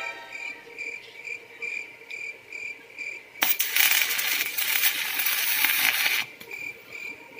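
Electric arc welding on a steel pipe: the arc strikes about a third of the way in and crackles and hisses for about three seconds, then stops. Crickets chirp in an even pulse throughout.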